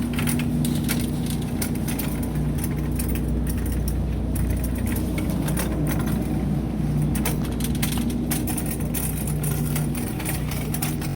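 Metal shopping cart being pushed, its wire basket and wheels rattling and clicking irregularly over a steady low hum.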